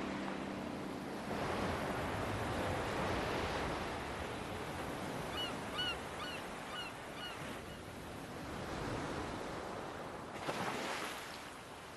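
Waves washing ashore, the surf swelling and easing several times. About halfway through, a small bird gives a quick series of about seven short, high chirps.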